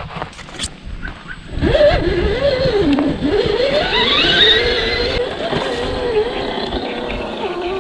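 RC crawler's electric motor and gears whining under throttle, the pitch wandering up and down with a steep rising whine in the middle, over a rough rumble of the drivetrain; a few sharp clicks near the start.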